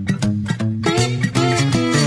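Background music with a steady beat and plucked guitar.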